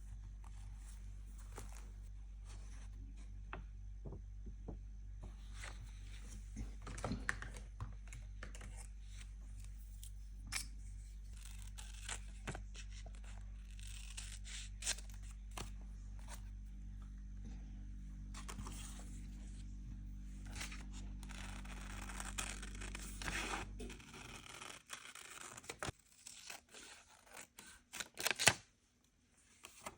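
Paper crafting at a desk: irregular tearing, rustling and sharp taps as journal materials such as paper and tape are torn and handled, over a steady low hum that cuts off suddenly near the end.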